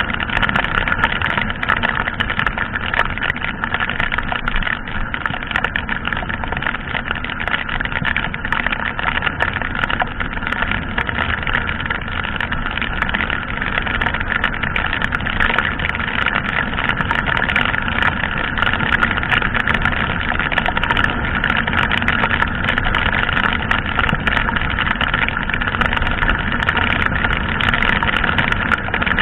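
Yamaha sport motorcycle running at a steady cruising speed in heavy rain: its engine note mixed with an even rush of wind and rain, with many small ticks over it and no change in speed.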